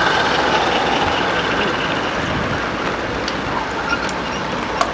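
Steady heavy rain drumming on a canopy overhead, with a small-scale garden railway train of wagons rolling past on the track. A couple of sharp clicks come near the end.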